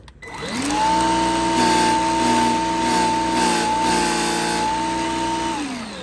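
Gtech AirRam K9 Mk2 cordless vacuum's single 100-watt motor and brush bar switched on, spinning up to a steady high whine with the bristles rubbing against the hinged front airlock wall, which the owner says bends and wears them. About five seconds in it is switched off and winds down.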